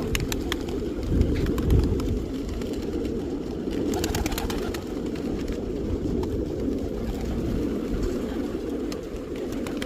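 A large crowd of pigeons cooing together in a steady low murmur, with scattered sharp clicks and taps over it.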